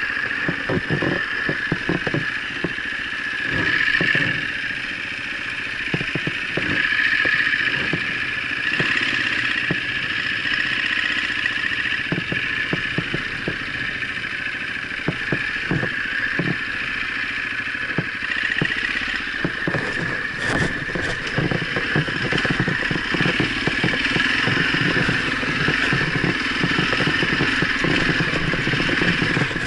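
Husaberg enduro motorcycle engine running while the bike rides over rough, rocky ground, with frequent short knocks and clatter from the bike throughout.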